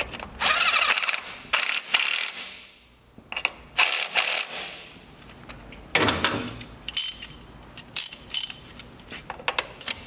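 Cordless impact driver run in several short bursts, driving bolts home on a motorcycle landing-gear mounting bracket. Toward the end come light metal clinks and the clicking of a hand ratchet.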